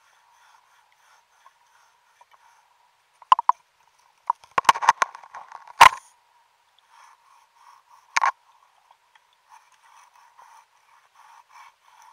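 Underwater scrubbing of a brass ship's propeller with large stiff abrasive pads to strip concretion: faint, rhythmic scratching strokes, broken by sharp knocks and clicks, several in a cluster in the middle and one more about eight seconds in.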